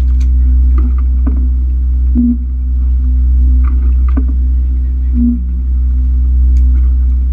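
A sportfishing boat's engine running steadily with a deep, even drone, swelling briefly about every three seconds, with faint scattered clicks and knocks on deck.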